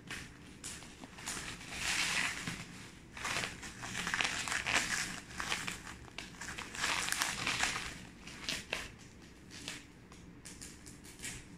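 Plastic bubble wrap crinkling as it is pulled and worked loose from a box, in several loud bursts with quieter spells between, thinning out over the last few seconds.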